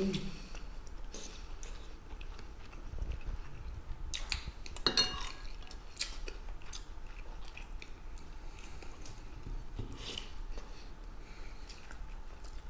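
Chewing and eating noises with scattered clinks of a metal spoon against a ceramic soup bowl; the loudest cluster of clinks comes about five seconds in.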